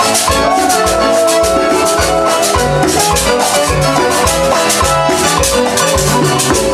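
Salsa dance band playing: a steady beat of drums and maracas under a pulsing bass line and held melody notes.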